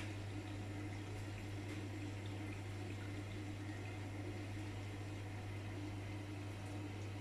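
AEG Lavamat washing machine filling with water during its service test: a steady rush of water running in, with a steady low hum underneath.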